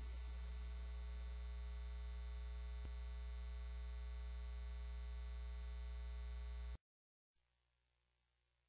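Steady low electrical buzz with many even overtones, like mains hum in the audio line. It cuts off suddenly near the end.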